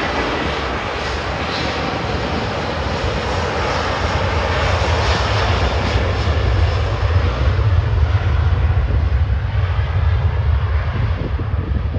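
Airbus A330 jet engines at takeoff power: a loud, continuous rush of jet noise. About seven seconds in it deepens into a heavier low rumble, while the high hiss fades toward the end.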